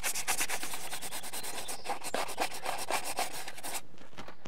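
Sandpaper rubbed by hand over cured Bondo body filler in nail holes on door trim, light sanding in quick back-and-forth strokes that thin out and stop shortly before the end.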